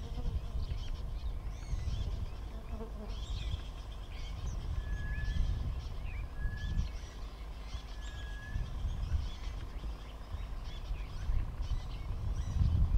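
Wild birds chirping and calling, with three clear, flat whistled notes about a second and a half apart in the middle, over a steady low rumble.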